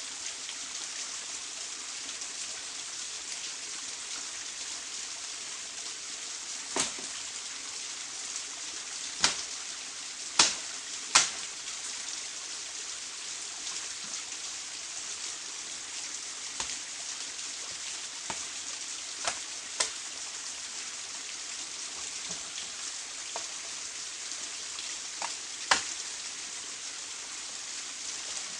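Steady hiss of rain, with a sharp tap or knock every few seconds; the loudest two come close together about ten seconds in.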